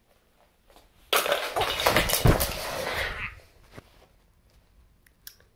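A person tripping on a rug and falling onto a wooden floor with the phone tumbling: about two seconds of scuffling and knocking with a heavy thump near the middle, then fading to light rustling.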